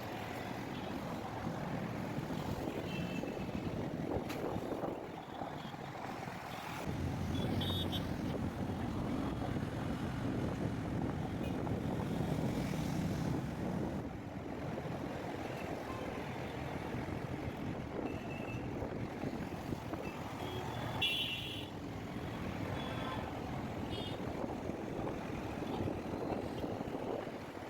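Road traffic: vehicle engines running and passing, swelling in the middle, with a couple of brief horn toots.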